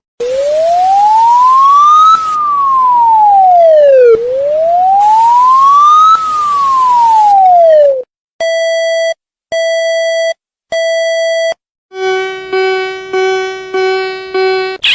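Electronic alarm tones of a mock emergency alert. First a siren tone glides up and down twice, about four seconds a cycle. Then come three steady beeps of about a second each, and then a harsh buzzing tone pulsing about five times.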